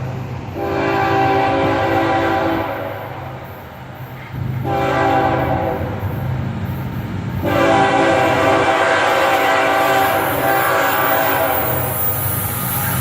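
Nathan K5HL five-chime air horn on an FEC ES44C4 diesel locomotive sounding three long blasts, the last about five seconds long and still going at the end, over the low rumble of the approaching train.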